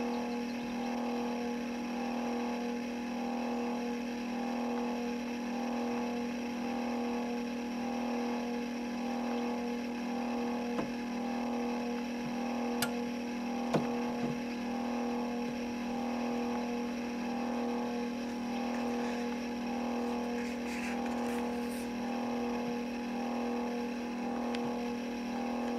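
Egg incubator's motor running with a steady hum that swells in a slow, regular pulse a little under once a second. A few sharp clicks come around the middle.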